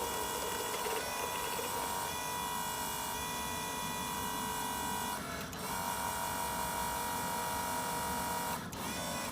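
Small electric motors of a toy excavator whining steadily as its arm and bucket are worked, with two brief breaks where the motor stops or changes direction, about five seconds in and near the end.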